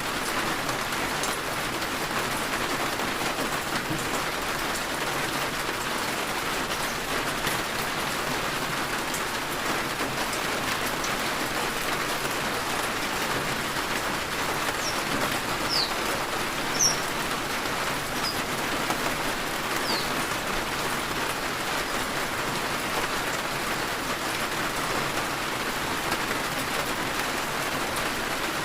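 Heavy rain falling steadily. A few short, high chirps come through the rain around the middle.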